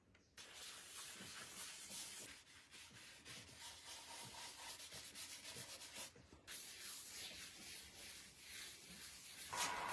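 Quiet sandpaper rubbing on wood: a continuous scratchy noise of close, repeated strokes, breaking off briefly about six seconds in.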